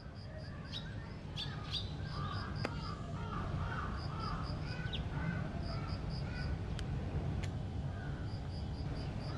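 Birds calling outdoors: a high chirp repeated about five times a second in short runs, with a cluster of lower, wavering calls about two to three seconds in, over a steady low rumble.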